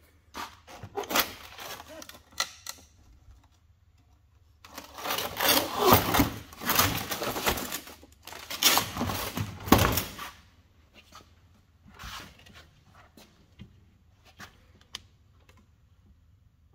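Irregular clattering, knocking and scraping of parts and tools being handled. It comes in a short busy stretch near the start and a longer, louder one from about five to ten seconds in, then only scattered light knocks.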